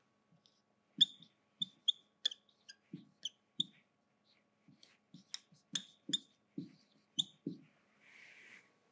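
Dry-erase marker writing on a whiteboard: a string of short taps and squeaks as strokes and symbols are drawn, with a pause of about a second in the middle before the writing resumes.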